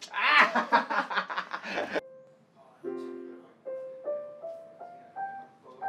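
Two men laughing hard, cut off abruptly about two seconds in. A piano then plays a chord, followed by a slow run of single notes climbing step by step.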